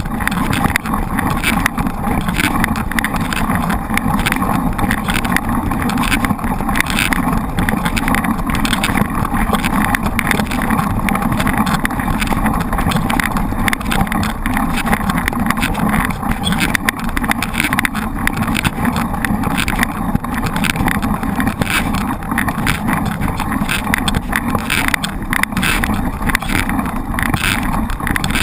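Wind rushing over the microphone of a mountain bike in motion, with frequent rattles and knocks from the bike over rough ground.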